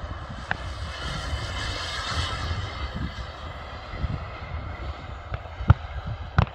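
CARF Ultra Flash Evo radio-controlled jet's model turbine engine whining in flight, swelling about two seconds in and then easing off, over a gusty wind rumble on the microphone. A couple of sharp knocks near the end.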